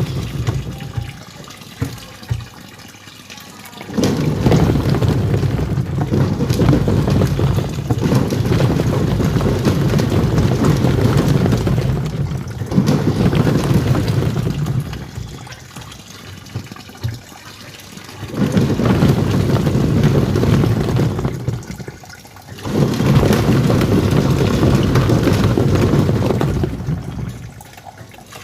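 Twin-tub washing machine's wash tub churning soapy water. It goes in long stretches of several seconds, separated by quieter lulls of a few seconds, as the pulsator stops and reverses direction.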